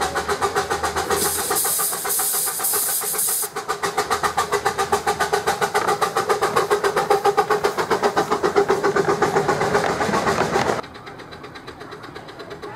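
Coal-fired miniature steam locomotive working past with its exhaust chuffing in a fast, even beat. There is a burst of steam hiss for about two seconds starting about a second in. Near the end the sound drops suddenly to a quieter, more distant chuffing.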